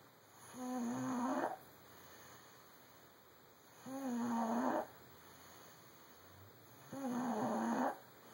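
Snoring: three pitched snores, each about a second long and roughly three seconds apart.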